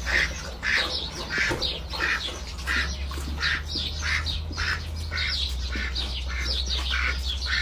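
White domestic duck quacking over and over in short calls, about two a second.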